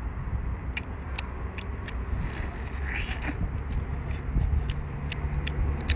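Eating a cooked shrimp head by hand: scattered small clicks and crackles of shell and mouth sounds, with a louder crunching hiss about two to three seconds in, over a steady low rumble.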